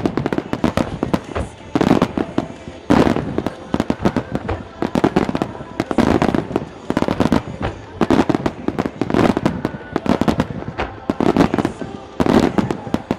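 A dense barrage of aerial firework shells bursting in quick succession, heavy booms about every second over continuous crackling and popping.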